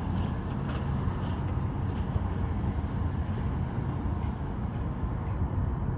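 A 1978 Mercury two-stroke outboard motor running steadily, heard as a low rumble mixed with wind noise on the microphone.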